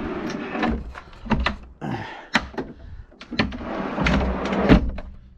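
Plywood drawer on heavy-duty full-extension lock-in/lock-out ball-bearing slides being run in and out: a rolling rumble twice, with sharp clicks and knocks as the slides latch and the wood bumps home. The loudest knock comes near the end.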